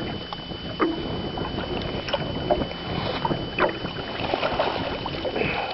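Water splashing and scattered knocks and clatters at a small fishing boat as a walleye is dipped up in a landing net and brought aboard.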